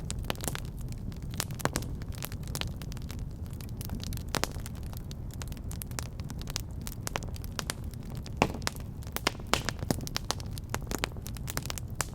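Wood fire in a fireplace crackling, with frequent irregular sharp pops over a steady low rumble of the flames. The loudest pop comes a little past the middle.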